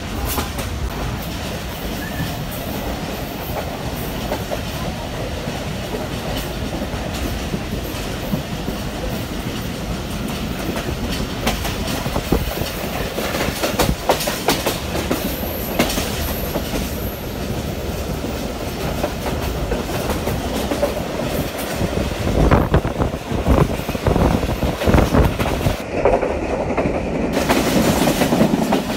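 Passenger train running at speed: a steady rumble of the coach with the wheels clattering over the rail joints. It grows louder and more uneven near the end.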